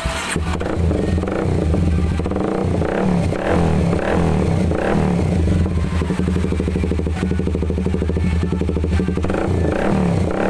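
Kawasaki 250 SL's single-cylinder engine running through an aftermarket F2racing CLS 20 cm stainless steel exhaust, revved in repeated short throttle blips with a steadier idle in between.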